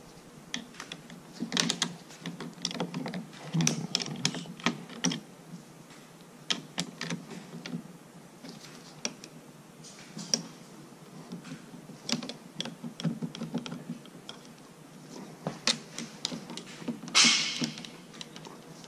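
Irregular metallic clicks and light rattles of a wrench and door hardware being worked by gloved hands on a tractor cab door's hinge and latch, as the door is adjusted. A brief louder scrape comes near the end.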